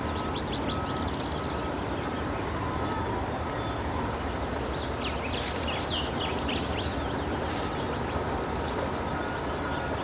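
Small birds chirping in open woodland at dawn, with a cluster of quick calls about five to seven seconds in and a rapid buzzy trill starting about three and a half seconds in, over a steady background hiss.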